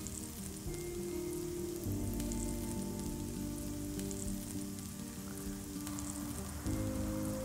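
Shellfish sizzling in their shells on a wire grill over charcoal, the juices bubbling with a fine crackle. Soft background music with sustained notes plays underneath, changing chord twice.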